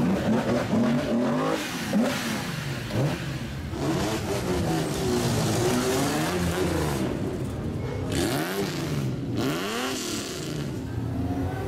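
Classic Japanese cars driving slowly past one after another, their engines revved in repeated throttle blips so the pitch climbs and falls every second or two.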